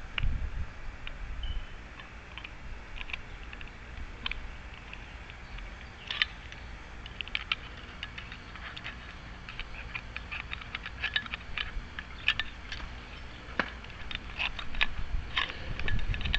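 Small metal lock parts clicking and ticking irregularly as a lock cylinder is handled and fitted back together, lining up its pin-chamber bible with the slot, over low handling noise.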